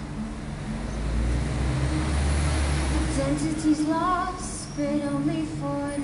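Acoustic guitar playing steady chords while a woman sings, her voice coming in about three seconds in. A passing vehicle's deep rumble sits under the first half.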